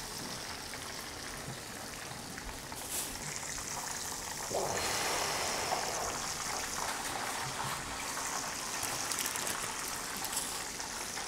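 Hot cooking oil sizzling and bubbling steadily as breaded chicken pieces deep-fry. It gets louder about four and a half seconds in.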